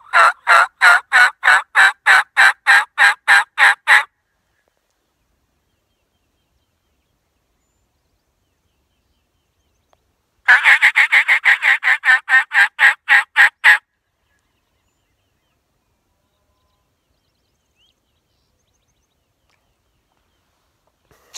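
Hen-turkey calls on a diaphragm mouth call, meant to make gobblers answer. There are two loud runs of evenly spaced notes: the first at about three notes a second for four seconds, then after a six-second pause a quicker run of about a dozen notes.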